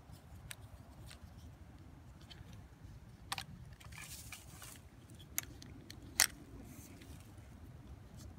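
A black plastic mounting bracket being handled and fitted onto a metal pole: a few sharp clicks and knocks, the loudest about six seconds in, with a short rustle around four seconds, over a low steady rumble.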